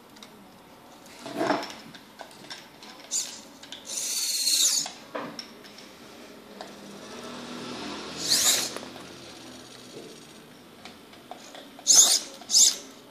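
Small electric gear motors of a homemade remote-controlled forklift robot whining in short spurts as it drives and raises its fork, including two quick whines near the end.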